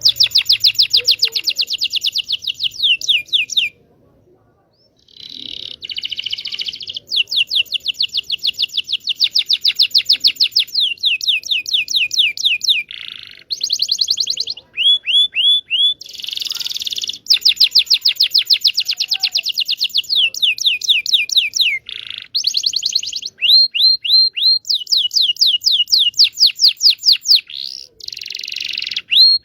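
Domestic canary (Indonesian local canary) singing: rapid trills of fast down-slurred whistled notes, several a second, broken by short buzzy rolls, with a brief pause about four seconds in. It is a song-tutor (pancingan) recording played to prompt silent canaries to sing and to teach young birds.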